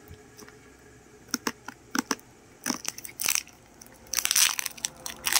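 Clear plastic shrink wrap crackling and crinkling as it is peeled and torn off a cylindrical container, in scattered sharp crackles that thicken into a dense crinkling burst about four seconds in.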